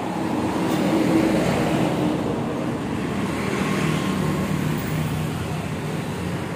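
Steady rumble of passing road traffic, with the engine note of a vehicle swelling briefly around the middle.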